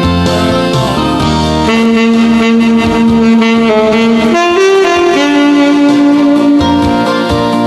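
Alto saxophone playing the song's melody in long held notes that step from pitch to pitch, over a recorded accompaniment.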